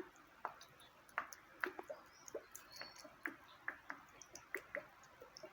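Faint, irregular small clicks and wet ticks, two or three a second, as salty soy sauce is added to a bowl of minced meat.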